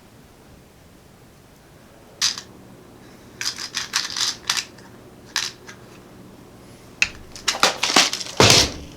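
Sharp clicks and light clatter of small hard computer parts being handled during assembly, a few scattered strokes and then a quick run of them near the end.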